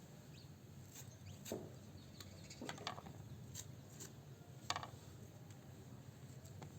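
Faint, scattered rustles and light clicks, four or five in all, as thuthuvalai (Solanum trilobatum) leaves are handled and picked clean one by one.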